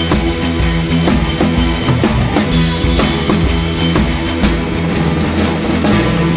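Background rock music with a driving drum kit: bass drum and snare keeping a steady beat under sustained guitar and bass.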